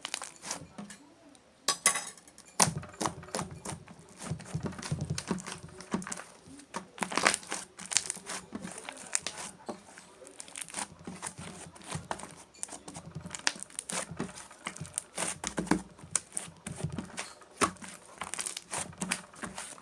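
Chewy slime being squeezed, stretched and pressed by hand, making many irregular wet clicks, pops and crackles.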